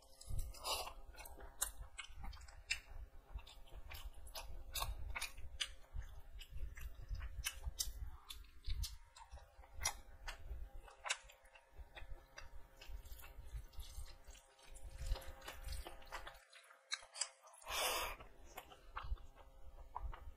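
Close-up chewing and eating by hand: wet mouth clicks and smacks, irregular and frequent, as chicken curry and rice are chewed, with a short louder rush of noise near the end.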